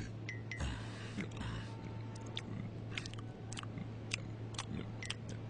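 Someone chewing a sandwich with the mouth full: wet, irregular smacking clicks about twice a second, over a steady low hum.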